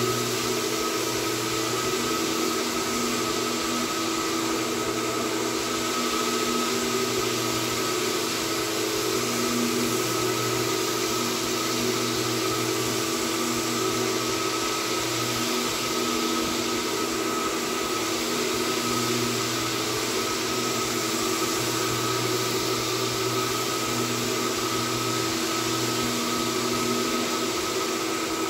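Single-disc rotary floor machine working a bare hardwood floor, with a wet/dry vacuum pulling the dust through its hose: a steady motor drone and suction hiss with a few steady tones, and a low hum that swells and fades every few seconds as the machine is swung across the floor.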